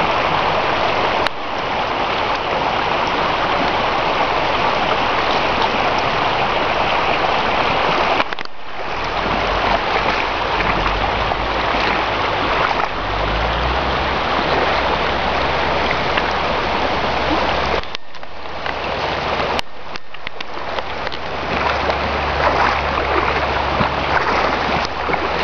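River water rushing over stones: a loud, steady rush of flowing water that breaks off briefly a few times, with a deeper low rumble joining under it partway through.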